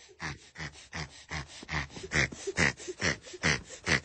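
A baby panting excitedly in rhythmic breathy huffs, about two a second, getting louder as it crawls up close.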